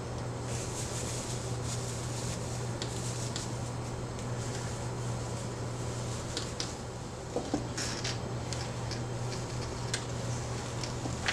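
Bone-dry sphagnum moss rustling and crackling in short, scattered bits as it is pressed by hand around orchid roots on a cork bark mount, over a steady low hum.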